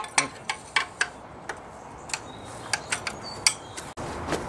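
Irregular light metal clicks and clinks, each with a short ring, of a ring spanner being worked on a brake caliper mounting bolt in a Jaguar E-type's independent rear suspension cage. The bolt is too tight to turn by hand.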